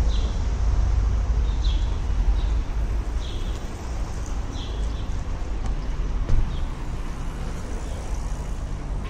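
Street ambience: a steady low rumble of traffic, with a bird's short high chirp repeating about every one and a half seconds for the first half or so.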